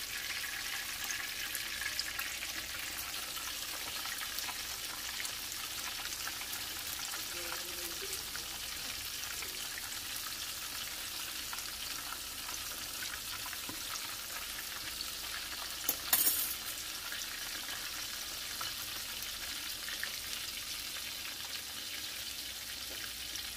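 Battered turkey pieces deep-frying in hot oil in a cast-iron skillet: a steady sizzle, with one brief clatter about two-thirds of the way through.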